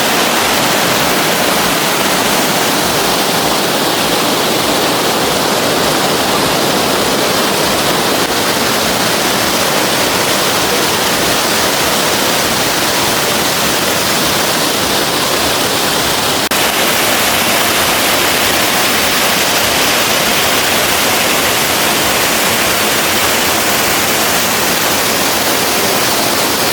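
Waterfall: a steady, loud rush of falling water, an even hiss with no breaks, its tone shifting slightly about two-thirds of the way through.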